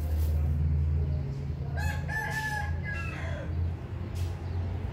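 A rooster crowing once, a pitched call of a few held notes that falls away at the end, about two seconds in, over a steady low hum.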